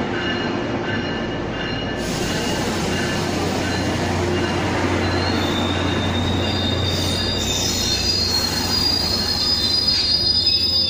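Tri-Rail double-deck commuter train rolling past along the platform with a steady rumble. A high-pitched wheel squeal joins about four seconds in.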